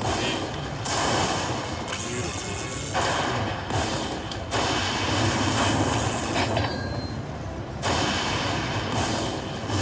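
Aristocrat High Stakes Lightning Link slot machine playing its crackling thunder-and-lightning win effects in repeated bursts about a second long as the win meter counts up the bonus payout.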